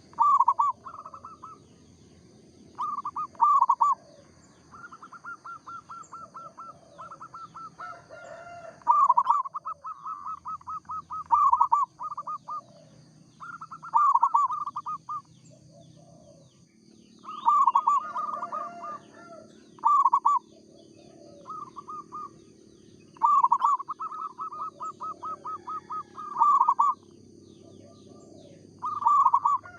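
Zebra dove (perkutut) cooing: phrases of rapid pulsed notes, one after another every few seconds, with fainter, lower-pitched calls in between. A steady high-pitched whine runs in the background.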